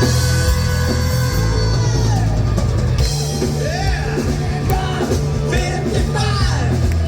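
Rock music playing loud and steady, with a singing voice over drums and a heavy bass line.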